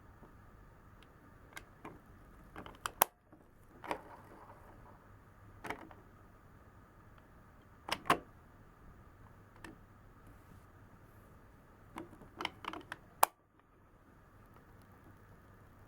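Scattered clicks and knocks of hard plastic as an Anpanman toy microwave oven is handled: single taps here and there, a quick run of clicks about twelve seconds in, and two sharp snaps, one about three seconds in and one near the end.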